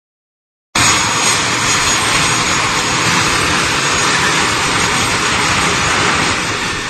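Engines of a small twin-jet business aircraft running as it taxis in, a loud steady rushing noise with a thin high whine; it starts abruptly under a second in and eases off near the end.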